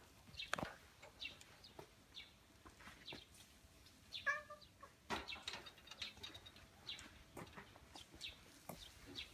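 Faint scattered short chirps and clicks, with one brief pitched animal call about four seconds in.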